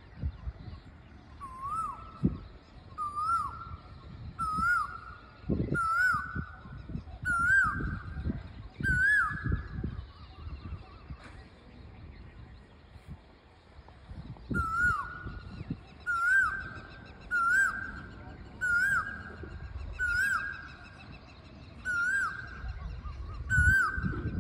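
Male Asian koel calling its repeated rising "ku-oo" note, each call higher than the one before. There are two runs of about seven calls, one every second and a half or so, with a pause of a few seconds between them.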